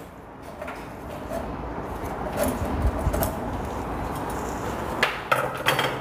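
Light metal clinks and scrapes as a broken lever handle is worked off the spindle of a metal gate's lock, with a cluster of sharper clicks near the end.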